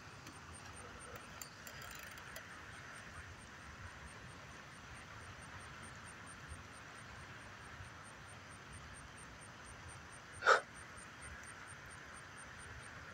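Faint night-time outdoor ambience: a steady low hiss with a high, evenly pulsing chirp about four times a second. One short, louder sound comes about ten and a half seconds in.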